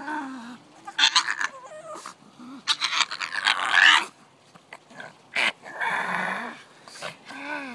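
A black pug making a string of strange, short vocal noises with brief pauses between them, some rising and falling in pitch.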